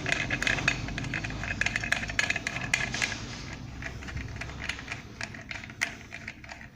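Rapid small clicks and rattles of metal ceiling-fan parts being handled and screwed together, thinning out and growing quieter toward the end.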